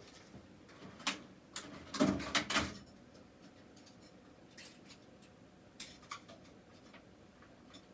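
Small metal tools and pistol parts being handled on a bench: a click, then a cluster of knocks and clatter about two seconds in, followed by scattered light ticks.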